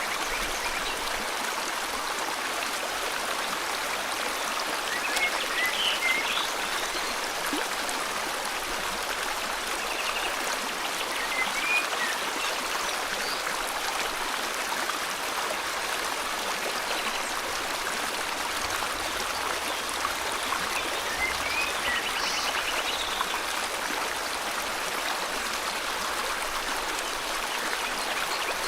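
Steady rush of flowing river water, with brief bird chirps and short trills breaking in about three times.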